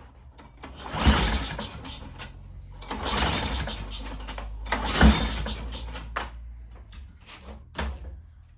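Lawn mower's recoil pull-start cord yanked twice, about four seconds apart, each pull spinning the engine over with a rasping whirr. The engine never catches, since the ignition is giving no spark.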